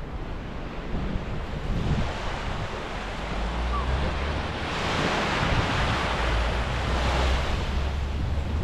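Surf washing onto a sandy beach, swelling into a louder wash about halfway through, with wind rumbling on the microphone.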